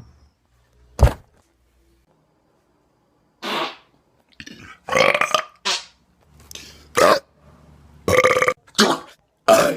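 Deliberate belches, one after another: a string of separate loud burps, the longest about five seconds in and several short ones toward the end.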